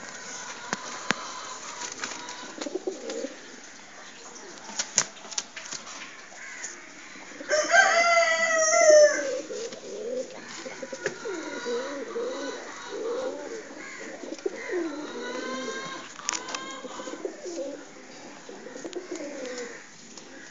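Domestic pigeons cooing in a loft, with a few sharp clicks in the first seconds. A louder, higher falling call lasting about a second and a half stands out about 8 seconds in, with a weaker one near 16 seconds.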